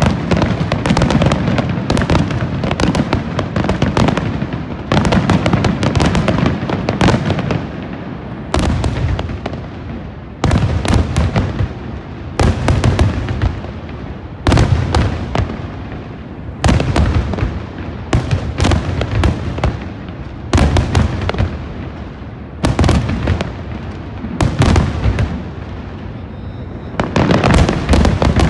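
Aerial fireworks shells bursting in a rapid barrage: clusters of many sharp bangs and crackles come in waves about every two seconds, loud, with a lower rumble between the waves.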